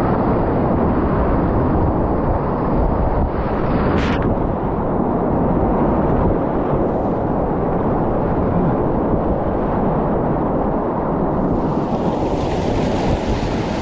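Whitewater rapid rushing loudly around an inflatable kayak in the thick of it, with wind buffeting the microphone. A brief sharp splash about four seconds in, and a hiss of spray near the end as the boat punches through breaking waves.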